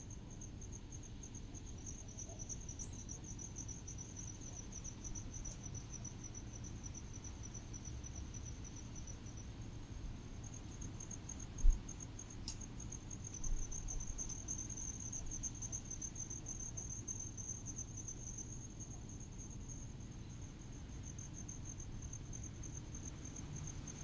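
Crickets chirping in a steady, high, fast-pulsed trill over a low rumble of breeze, with a brief lull in the trill near the middle. A single low thump sounds a little before the halfway point.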